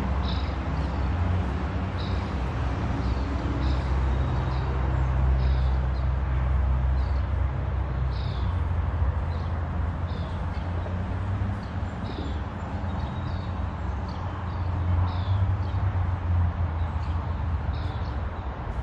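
Small birds chirping in short, high notes that drop slightly in pitch, about once a second, over a steady low rumble.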